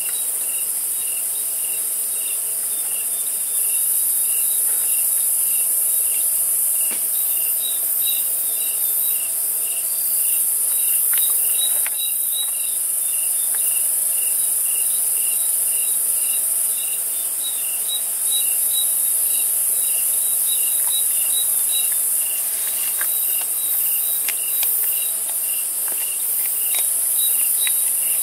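Night chorus of crickets and other insects: a steady high-pitched shrill with a regular chirp repeating a little over twice a second.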